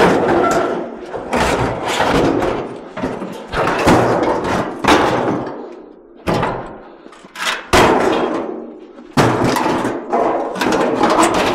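Sheet-metal scrap being thrown and shifted onto a truck's load: a string of loud metal clangs and bangs, one every second or so, each ringing briefly before it dies away.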